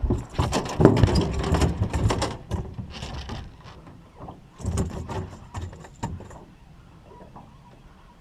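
Two bursts of irregular knocking and rustling, many sharp clicks and bumps close to the microphone, like handling noise. The first runs for about two and a half seconds, the second for about a second and a half near the middle, and then it goes quieter.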